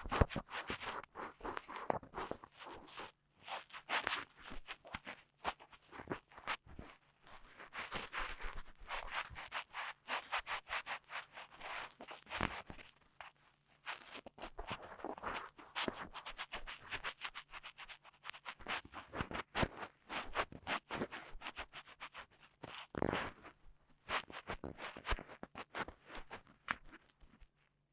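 Dry cotton swab scratching and rubbing for ear-cleaning ASMR, in irregular strokes with short pauses between them.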